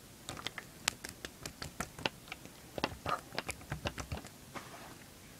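Rainbow slime being squeezed and kneaded by hand, giving an irregular run of small clicks and pops, several a second, that stop about a second before the end.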